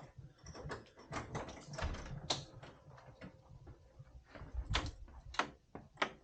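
A door being opened, with footsteps: a run of irregular clicks and knocks, the sharpest about two seconds in and three more near the end.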